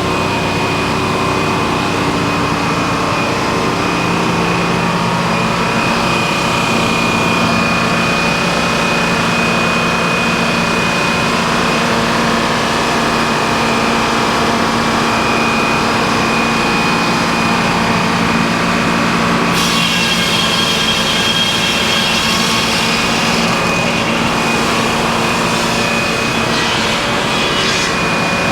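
Circular sawmill with topsaw running and sawing a log, a steady machine drone with a whining saw tone. About twenty seconds in the sound brightens suddenly, with a higher whine joining.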